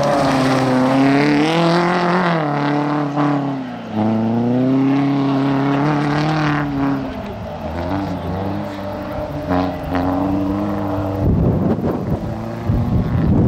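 Peugeot 206 rally car's engine revving hard under power on gravel, its pitch climbing and dipping several times with throttle lifts and gear changes. Near the end the engine note drops away under a rough rushing noise.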